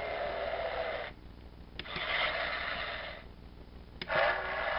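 VTech Switch & Go Dinos toy playing electronic action sound effects through its small built-in speaker: three short noisy effects in a row, each about a second long, with a sharp button click just before the second and the third.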